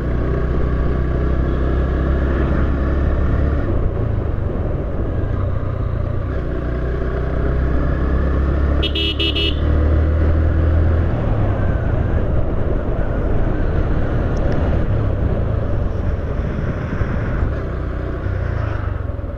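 Motorcycle engine running under way on the road, its note shifting a couple of times, with road noise around it. A short horn toot comes about nine seconds in.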